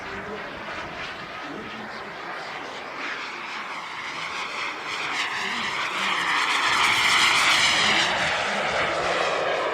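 Radio-controlled model turbine jet flying past. Its turbine whine and rush grow louder to a peak about seven to eight seconds in, with the pitch bending as it passes, then fade.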